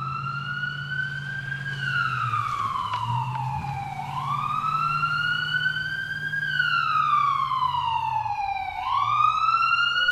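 Siren wailing, its pitch climbing slowly for about two seconds and then falling for a little more than two, rising three times and falling twice, over a steady low hum.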